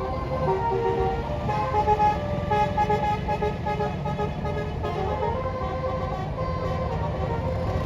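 A bus's basuri (telolet) musical air horn playing a quick tune of short, changing notes, over the low running of the bus's engine.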